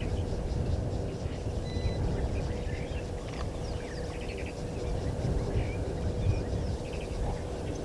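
Wild birds calling with scattered short chirps and quick trills, over a steady low outdoor rumble.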